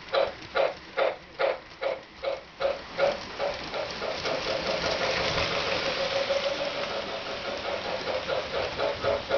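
MTH RailKing Pennsylvania K4 O-gauge model steam locomotive chuffing in a steady rhythm, about two to three chuffs a second, from its built-in sound system. For a few seconds mid-way the chuffs blur into a steadier rush as the passenger cars roll close past, then come back clear near the end.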